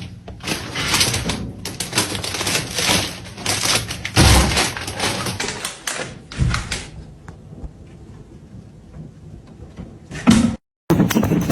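A rapid run of irregular knocks, thuds and clatter that dies down about six seconds in, then more clatter near the end.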